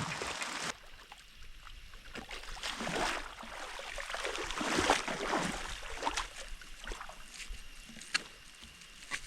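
Irregular water splashing and sloshing, with a few sharp knocks, loudest about five seconds in.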